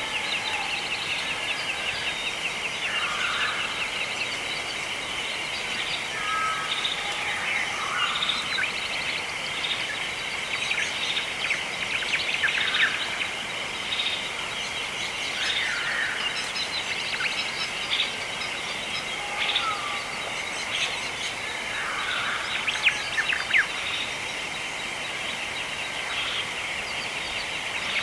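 Wild birds chirping and calling at intervals over a steady, high-pitched trilling background din.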